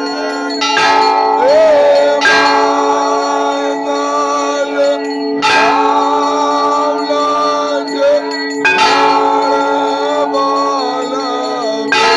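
Temple bells ringing continuously for an aarti, with louder clanging strikes every few seconds.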